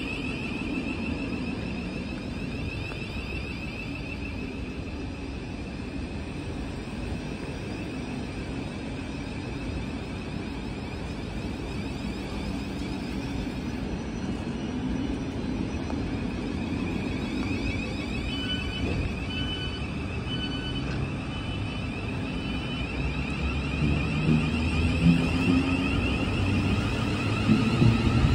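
Thameslink Class 700 (Siemens Desiro City) electric multiple units at low speed along a platform, with a steady high electric whine from the traction equipment over a low rumble. About two-thirds of the way in come five short high beeps. Near the end a second unit passes close, its rumble and whine growing louder.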